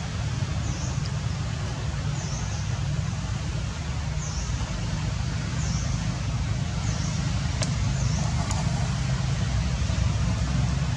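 Steady low outdoor rumble with a faint, short, high chirp repeating about every second and a half, and two sharp ticks about three-quarters of the way through.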